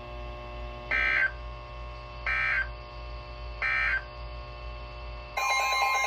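Emergency Alert System end-of-message signal: three short, identical bursts of buzzy digital data tones, a little over a second apart. Near the end a different set of steady and warbling tones starts abruptly.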